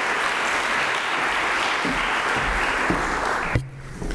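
Audience applauding steadily, then cutting off abruptly about three and a half seconds in.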